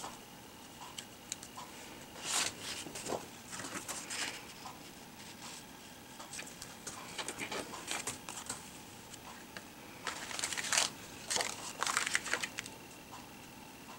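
Cardstock and patterned paper rustling and sliding as pieces are picked up and laid down on a cutting mat, in short scrapes scattered through, busiest about ten to twelve seconds in.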